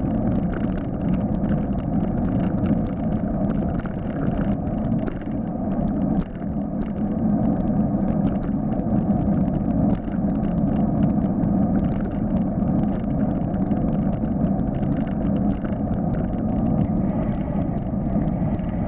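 Steady wind and road rush on a bicycle-mounted camera riding along a road, with motor traffic in it. Frequent small clicks and rattles run through it.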